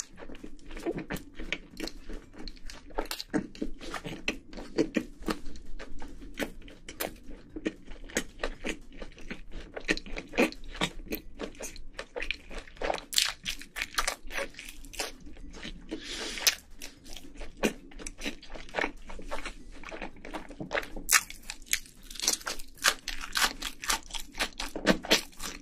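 Close-miked chewing and crunching of food, with many irregular crisp crackles and bites.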